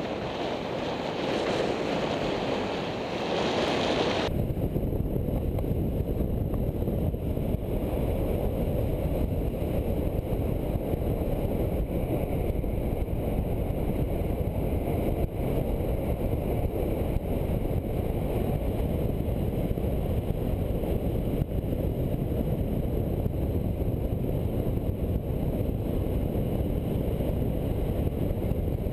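Wind rushing over a downhill inline skater's onboard camera at racing speed, with the rumble of skate wheels on asphalt. About four seconds in the sound switches abruptly to a lower, heavier rumble.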